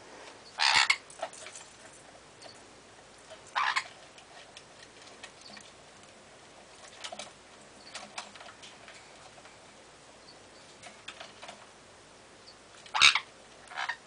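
Sun conures giving a few short, loud calls, one about a second in, one near four seconds and two near the end, with light clicking and tapping of beaks and feet on the wooden perches and toys between them.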